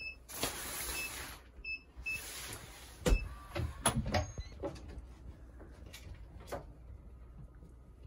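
Two rustling slides, about half a second and two seconds in, then a loud knock about three seconds in and a few lighter clicks and bumps: something being slid and handled in a small caravan room.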